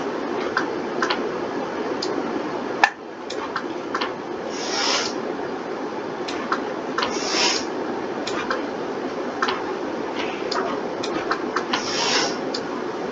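Scattered clicks of a computer mouse and keyboard over a steady hum, with a sharper click about three seconds in. Three short rubbing sounds, about five, seven and twelve seconds in.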